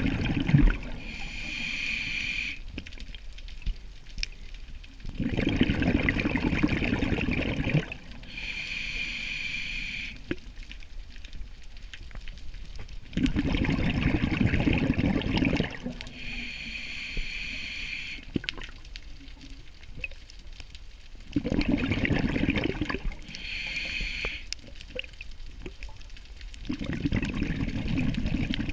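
Scuba diver breathing through a regulator underwater: a short hissing inhale, then a longer, louder rush of exhaled bubbles. The cycle repeats about every eight seconds, four breaths in all.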